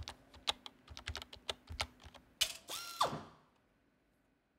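Sound-logo effects made of mechanical sounds: a quick, irregular run of sharp clicks like typing, then a short burst and a ringing tone that slides steeply down in pitch about three seconds in and fades away.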